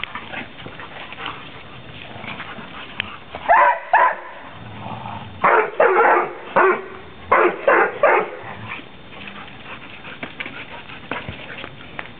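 Dogs barking in short bursts while playing over a ball: two barks about three and a half seconds in, then a quick run of about six more between five and a half and eight seconds in.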